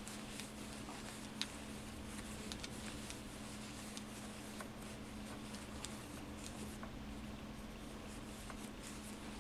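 Faint scattered clicks and soft rustles of a crochet hook working yarn into stitches, with a sharper tick about a second and a half in, over a steady low hum.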